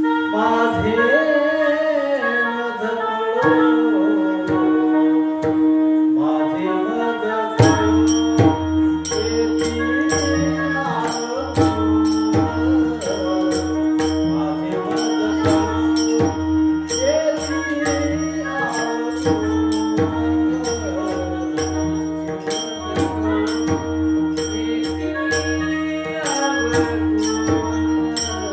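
A song: a singing voice over a steady held drone note, with percussion coming in about seven and a half seconds in and keeping a regular beat.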